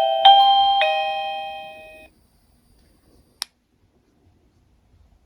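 Wireless video doorbell playing its electronic power-off melody: the last few notes of the chime tune ring out and fade away by about two seconds in. A single sharp click follows about a second later.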